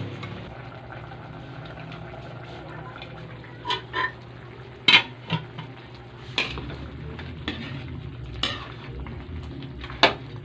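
A metal spoon clinking and scraping against a large metal wok as braising pork hocks in sauce are uncovered and stirred: from about four seconds in there are eight or so sharp clinks, two of them louder, over a steady low hum.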